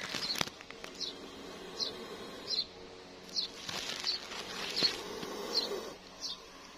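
High, short chirps repeating evenly, about one every three-quarters of a second, from a small animal, with a few faint rustles.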